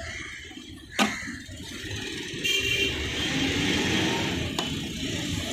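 A sharp click about a second in, then steady street-traffic noise grows louder as a motor vehicle passes close by.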